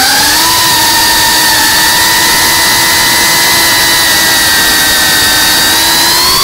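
iFlight CineLog 35 cinewhoop's brushless motors and ducted propellers whining loudly at a steady throttle. The pitch dips a little at the start, holds level, and rises near the end as the throttle is pushed up.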